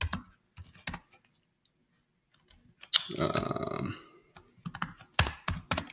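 Computer keyboard typing: scattered single key presses, then a quick run of keystrokes near the end as a terminal command is typed.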